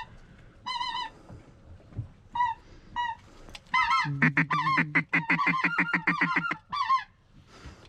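Geese honking: scattered short, wavering honks, then a dense rapid run of honks from about four seconds in for some two and a half seconds, and a few more near the end.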